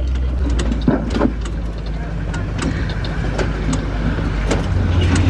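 Open-sided safari truck driving: a steady low engine rumble with frequent short knocks and rattles from the vehicle's body and frame.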